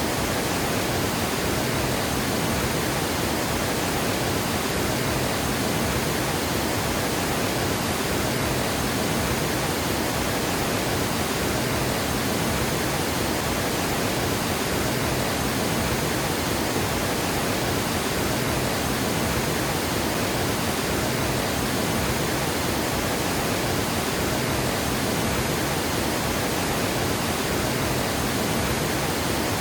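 Water pouring over a river dam: a steady, unbroken rush of falling water.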